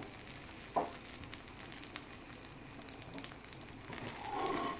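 Egg omelette frying in oil in a nonstick pan: a quiet, steady sizzle with scattered small crackles, and a brief knock about a second in.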